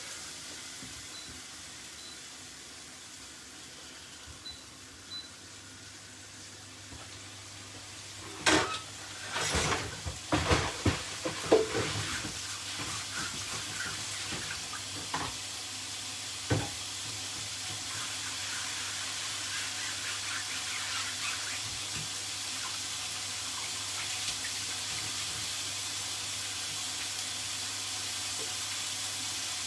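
Kitchen tap running into a sink, a steady hiss that starts about a third of the way in and carries on, with a run of knocks and clatter from dishes or utensils being handled just before it and a few single knocks later. Chicken searing on high heat in an oiled pan sizzles faintly underneath.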